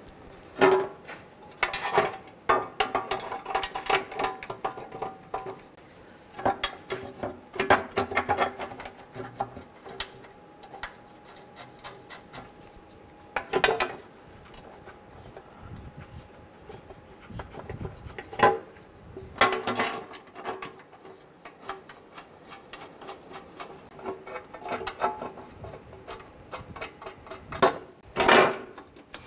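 Sheet-metal underbody shield being held up and bolts started by hand: irregular metallic clinks, taps and rattles, a few louder knocks that ring briefly.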